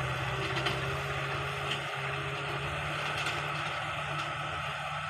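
Engine of a heavy farm machine running steadily with a low, even hum and light mechanical clatter.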